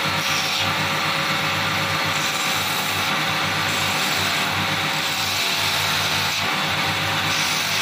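Belt-driven polishing wheel spinning with a steady motor hum while a bone knife handle is pressed against it, giving a hissing rub that comes and goes as the handle is worked.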